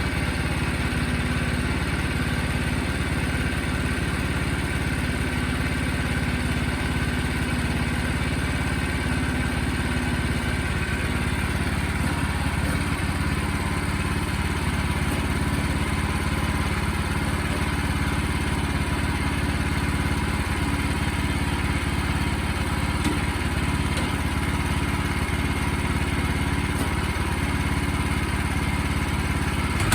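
Sawmill engine running steadily at an even speed.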